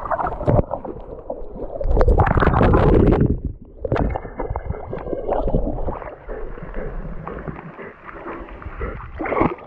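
River water splashing and gurgling in uneven strokes, loudest with a low rumble about two to three seconds in.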